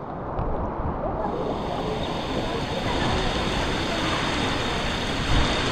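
Steady rushing of water, swelling in over the first second and then holding even.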